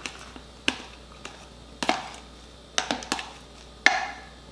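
Metal spoon stirring shrimp in a clear plastic container, knocking and clicking against the container at irregular intervals, about eight sharp taps.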